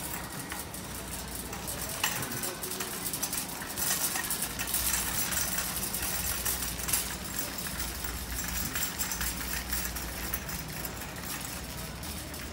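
Busy store ambience: indistinct background voices and a steady clatter of small clicks and rattles, with a sharp click about two seconds in and louder noise for a few seconds after.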